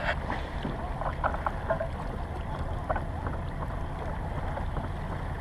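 Steady low rumble of wind and water around a kayak on open water, with a few faint short sounds scattered through.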